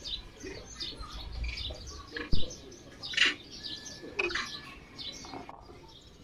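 Small forest birds chirping, many short high notes, with a sharp knock about two seconds in.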